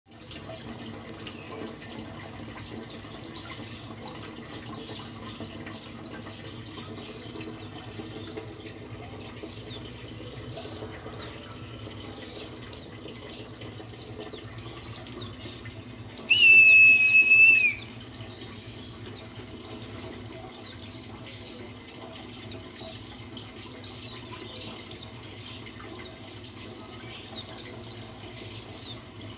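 White-eye (pleci buxtoni) song: short bursts of high, rapid twittering phrases every second or two. Midway comes one steady held note lasting over a second, and a low steady hum runs underneath.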